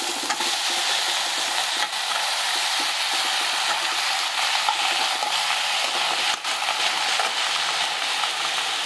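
Okra, brinjal and pumpkin sizzling steadily in hot oil in a kadai, stirred with a steel spatula.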